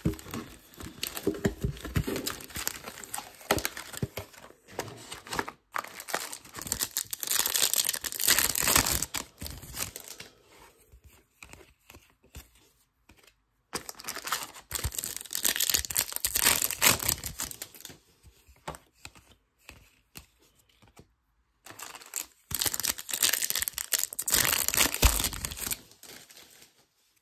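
Foil trading-card pack wrappers being torn open and crinkled in three bouts, with quieter gaps between them.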